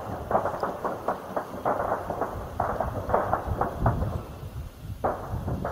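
Distant gunfire from violent clashes: a dense, irregular crackle of shots over a low rumble, thinning briefly about four seconds in.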